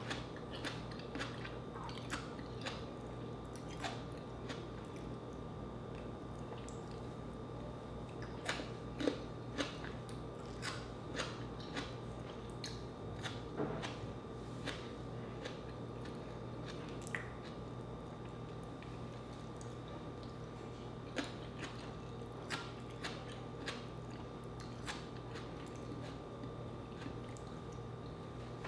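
Close-miked chewing and biting of crunchy fried food, with scattered sharp crunches, a few louder ones around the middle.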